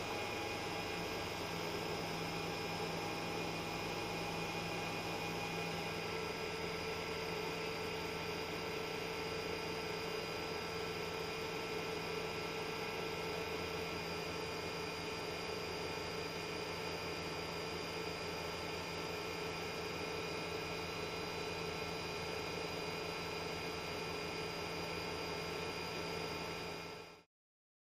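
A steady hum and hiss with several fixed tones held throughout, cutting off suddenly near the end.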